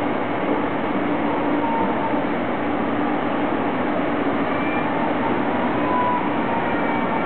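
JR Kyushu ED76 electric locomotive (ED76-90) starting slowly away with its sleeper train: a steady, even running noise with a constant low hum.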